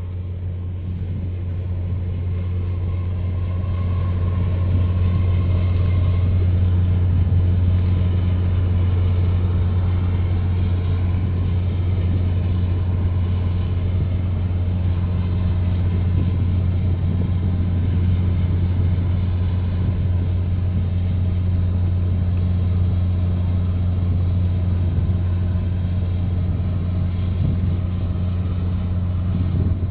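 Steady low drone of a boat's engine running close by, building over the first few seconds and then holding level.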